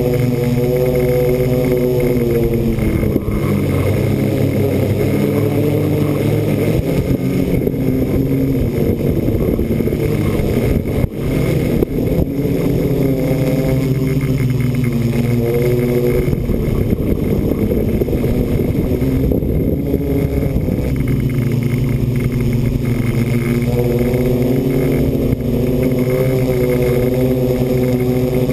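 Electric motors and propellers of a radio-controlled multicopter, heard from on board: a steady buzzing drone made of several pitched tones that drift up and down, with a brief rough patch about eleven seconds in.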